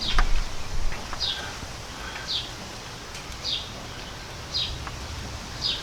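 A bird calling: a short, high, falling chirp repeated evenly about once a second, five times. A few light clicks and knocks in the first second.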